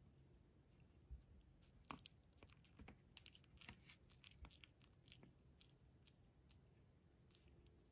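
A Shih Tzu puppy nibbling and mouthing a finger while shifting on a sheet of paper: faint, scattered soft clicks and crinkles, busiest in the middle.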